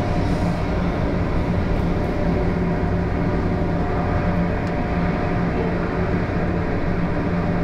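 Steady rumble with a constant low hum from a cruise ship's machinery and ventilation on the open top deck. It holds even with no change throughout.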